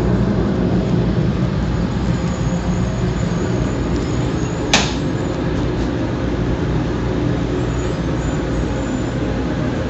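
Tokaido Shinkansen train running, a steady low rumble with a faint high whine, with one sharp click about halfway through.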